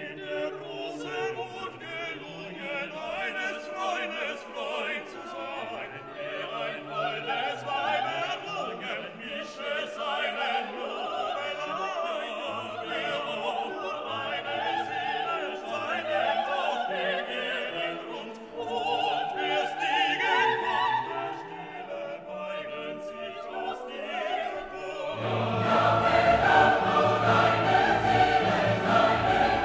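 Classical music with operatic singing over an orchestra. It grows louder and fuller about 25 seconds in.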